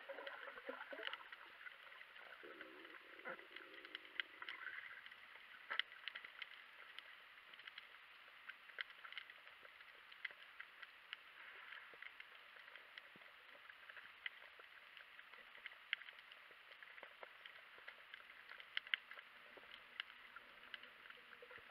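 Faint underwater ambience over a rocky reef: a steady hiss with many scattered sharp clicks and crackles.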